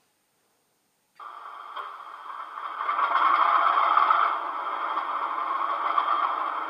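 Howes sound decoder in a 7mm-scale Class 37 model playing the English Electric diesel engine starting up through the model's small speaker, with little bass. The sound cuts in suddenly about a second in, builds to its loudest around three to four seconds in, then settles to a steady idle.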